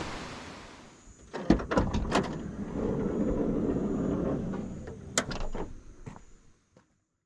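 Car door being opened and handled: a few latch clicks and knocks, a smooth rushing movement of about two seconds, then a sharp click and some lighter knocks.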